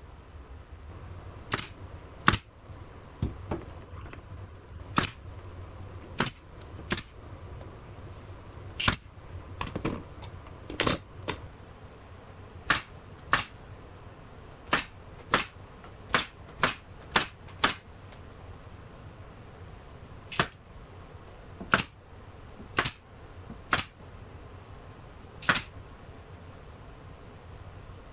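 Pneumatic nail gun firing about twenty times into wooden trim, single sharp shots a second or two apart, with a quicker run of six shots about half a second apart around the middle.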